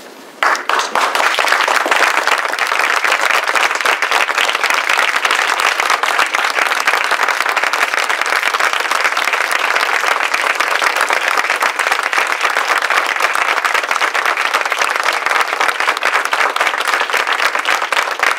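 A roomful of people applauding, starting about half a second in and keeping up a dense, steady clapping.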